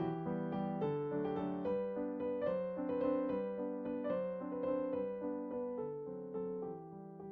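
Background music: a gentle piano piece playing steady, evenly paced notes.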